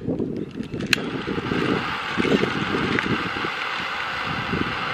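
Handheld propane torch being lit: a sharp click about a second in, then the flame hissing steadily.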